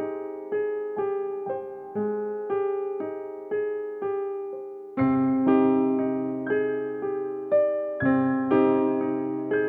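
Background music: a gentle electric piano playing evenly spaced notes about two a second, with a fuller bass part coming in about halfway through.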